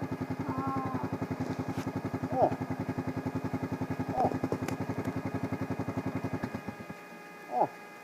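A vehicle engine idling with an even, rapid pulse, then shut off near the end. It is broken by short, falling 'oh' exclamations.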